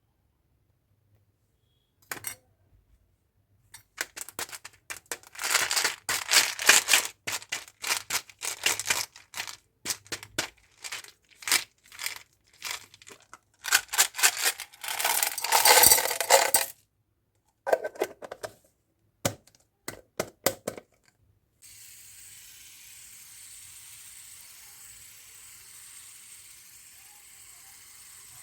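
Sweets and their packaging being handled: quick runs of sharp clicks, crackles and clinks for about twenty seconds, then a steady hiss.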